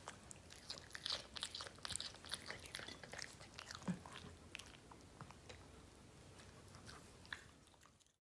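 A shih tzu chewing a piece of crunchy raw vegetable: quick crisp crunches and small clicks, busiest in the first few seconds and thinning out. The sound cuts off suddenly near the end.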